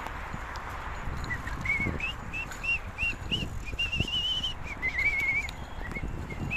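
A whistled tune: short rising-and-falling notes, about three a second, climbing in pitch, then a held wavering high note and a lower warbled run.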